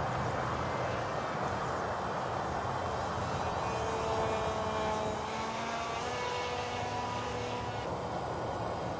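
Multiplex Minimag RC plane's electric brushless motor and propeller whining in flight, the pitch shifting up and down over a steady hiss.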